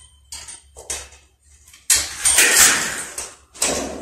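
Electrical wire being pulled through conduit into a ceiling junction box: a couple of short scraping rustles, then a longer, louder scrape about two seconds in and another shorter one near the end, over a low steady hum.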